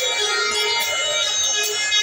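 Music with instruments playing, held steady throughout.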